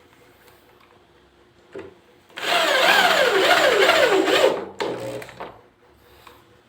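A tool working wood: a loud burst about two seconds long, its pitch sweeping up and down in regular swings, followed by a shorter, softer burst.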